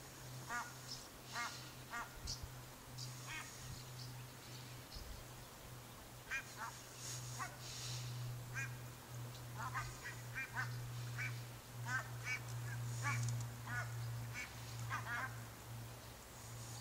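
Geese honking repeatedly, short calls singly and in quick runs, over a steady low hum.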